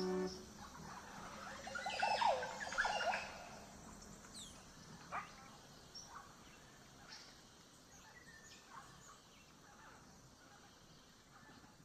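A held chord from the music stops just after the start, leaving outdoor ambience with birds calling. A burst of wavering calls comes about two to three seconds in, then scattered short chirps grow fainter.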